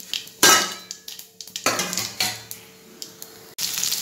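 Metal utensils clanking on a kadai: one sharp ringing strike about half a second in, then two softer knocks. Near the end, a steady sizzle of bitter gourd slices frying in hot oil starts suddenly.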